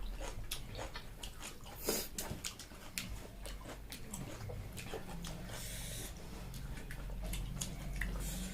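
Someone chewing food with many quick wet mouth clicks and smacks, over a low steady hum.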